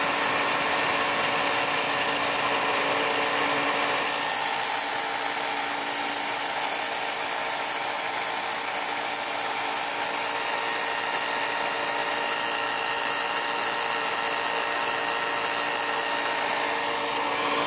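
Revere P-90 movie projector running steadily under its own motor, a continuous whirring hum with high hiss from the motor and the cam-driven mechanism. It dips briefly near the end.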